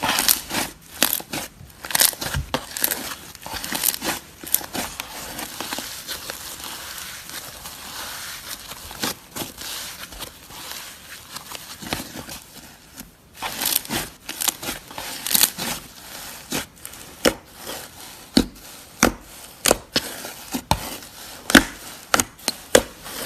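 Hands squishing and kneading slime, making irregular sticky crackles, pops and clicks, with a brief pause about thirteen seconds in.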